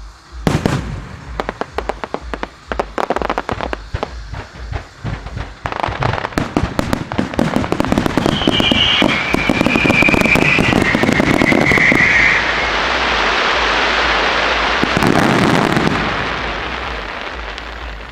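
Aerial fireworks barrage: rapid bangs and crackles from about half a second in, thickening into a continuous dense crackle in the middle with a high whistle over it, then fading near the end.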